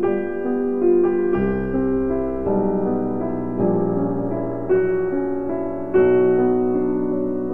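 Background piano music: notes and chords struck about once a second and held.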